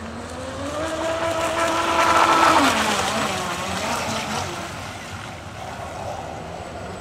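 A battery-powered radio-controlled model speedboat (Formula 27 hull) running on the water: its electric motor whine climbs in pitch, is loudest about two and a half seconds in with a hiss of water, then drops sharply in pitch and fades.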